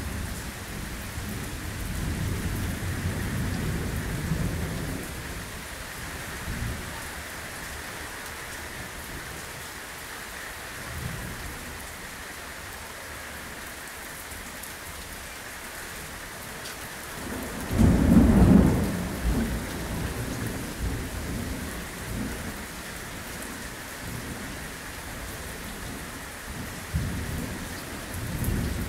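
Torrential rain hissing steadily, with thunder. Low rumbles come in the first few seconds, a loud thunderclap about eighteen seconds in rolls away over a couple of seconds, and another rumble comes near the end.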